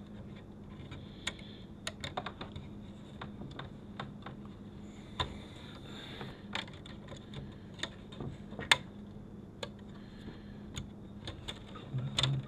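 Irregular light clicks and taps of fingers handling a flat ribbon cable against the sheet-metal chassis and circuit board of a car's DVD entertainment unit, over a faint steady hum.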